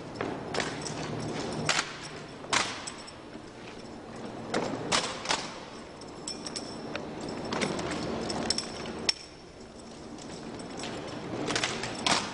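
Drill team working their rifles in an armed drill routine: sharp slaps and cracks of hands and rifles, with rifle butts and boots striking pavement. About a dozen irregular strikes, some coming in quick pairs or threes.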